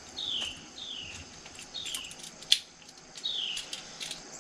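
A bird calling four times, each a short whistled chirp that falls in pitch, over a steady high insect drone. A sharp click sounds about two and a half seconds in, with a few fainter clicks around it.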